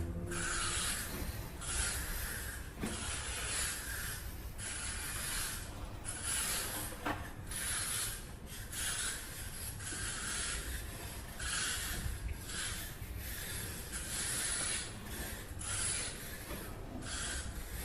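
Repeated scraping or rubbing strokes, about one a second, each lasting just under a second, as from a hand tool worked back and forth.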